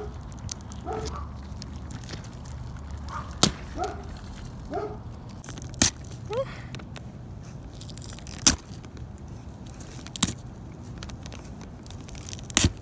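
Brussels sprouts being twisted and snapped off the plant stalk by hand: several sharp, separate snaps a few seconds apart, the last two close together near the end.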